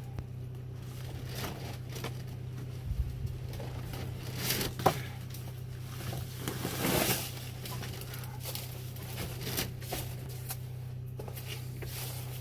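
Firewood being handled and set down: a few sharp knocks of wood and short rustling stretches, over a steady low hum.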